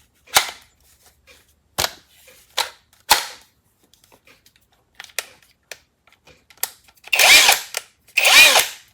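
A cordless impact wrench's battery pack clicking into place and the tool being handled, a few sharp clicks. Then two short trigger pulls near the end run the brushless motor free, each a brief whir that spins up and winds down.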